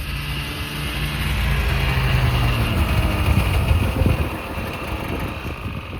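An engine running steadily at a low pitch, a little louder in the middle.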